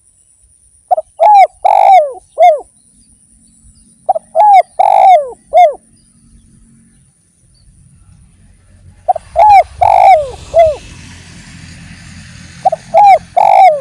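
Spotted dove (derkuku) cooing: four phrases of several arched coos each, one longer note in the middle of each phrase, a few seconds apart.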